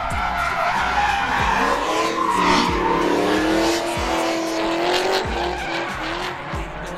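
Drift cars sliding on asphalt, engines revving hard while the tyres squeal. One engine note climbs about two seconds in, holds for a couple of seconds, then drops away.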